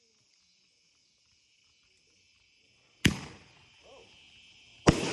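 Two sharp firework bangs, the first about three seconds in and the second near the end, each dying away quickly.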